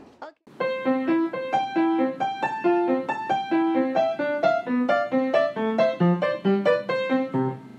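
Piano music: a quick, bright melody of short notes, a few per second, starting about half a second in and stopping abruptly at the end.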